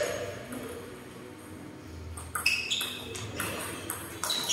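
Table tennis ball being hit back and forth: a quick run of sharp clicks with a short high ring, about three a second, starting about halfway through.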